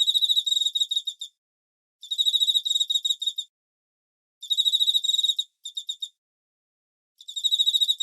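A cricket chirping: high-pitched trills of rapid pulses, each about a second long, four times over with short silent gaps between them, and a few loose pulses after the third trill.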